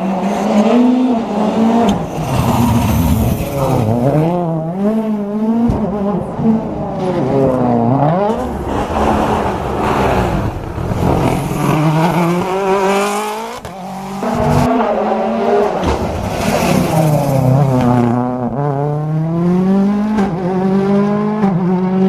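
Rally car engine driven hard, the revs climbing and dropping over and over as it accelerates, shifts and lifts off.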